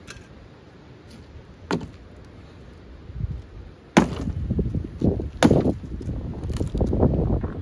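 A claw hammer striking old weathered wooden boards in a pile of barn demolition debris. A few sharp blows land: one about two seconds in, then louder ones in the second half.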